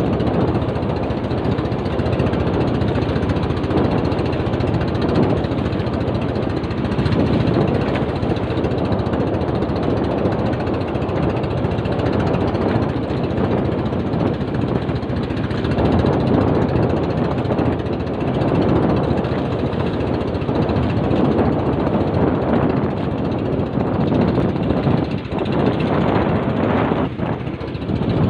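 Small fishing boat's engine running, loud and steady, with a knocking beat.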